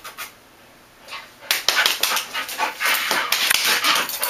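A dog panting rapidly in quick, even breaths, starting about a second and a half in.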